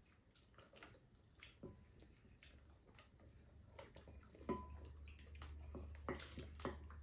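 Faint, scattered clicks of wooden spoons against ceramic bowls, with quiet eating sounds. The clicks grow more frequent in the second half, and a low hum comes in about halfway.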